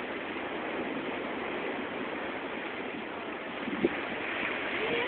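Sea surf breaking and washing up a sandy beach: a steady rushing hiss, with one brief knock about four seconds in.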